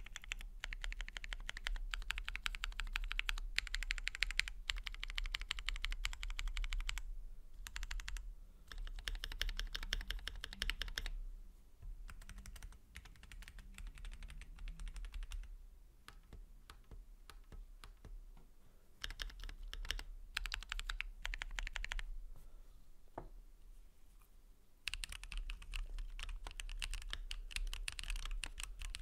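Typing on a Keychron Q3 Pro SE mechanical keyboard with a metal case and ABS keycaps: quick runs of key clicks, with short pauses and lighter, sparser typing in between.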